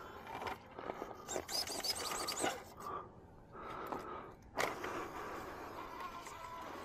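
Class 2 RC rock crawler working over rock: the electric motor and geared drivetrain whine in short pulls, while the tyres and chassis scrape and click on the stone. One sharp knock about four and a half seconds in.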